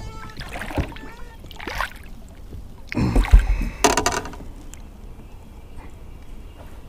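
A hooked fish splashing at the side of a fishing boat as it is landed by hand, with knocks against the boat; the loudest splashes and bumps come about three and four seconds in.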